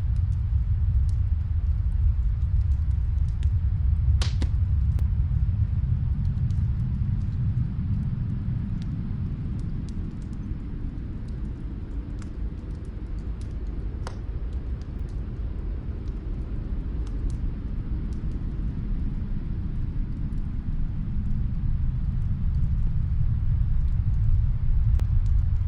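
Snowstorm wind as a steady low rumble that eases in the middle and rises again near the end, with a faint fireplace crackling through it as scattered small pops and one sharper crack about four seconds in.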